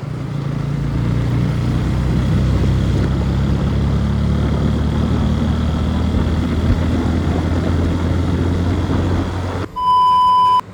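Motorcycle engine running steadily under way, a low even drone. Near the end it cuts out and a loud, pure electronic beep lasting about a second takes its place.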